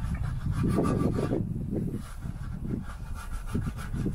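Microfiber wheel brush scrubbing a soapy alloy wheel, pushed in and out between the spokes and into the barrel in repeated rubbing strokes.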